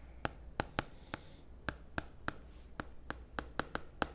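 Stylus tip tapping on a tablet screen during handwriting: a quick, uneven run of light clicks, about three a second.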